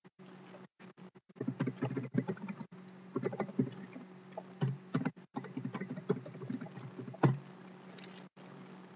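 Irregular bursts of computer keyboard typing, several short runs of key clicks with a sharper knock near the end, over a low steady electrical hum that cuts out briefly now and then.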